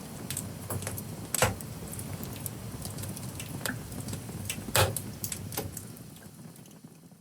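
Irregular crackles and clicks over a steady low rumble, with two louder knocks, one about a second and a half in and one near five seconds; the sound fades out near the end.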